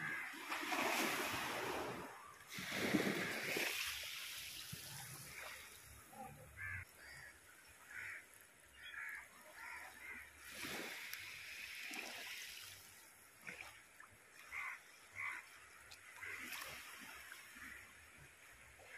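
Sea waves washing in among shore rocks, with two loud surges in the first four seconds, then a lower, steady wash.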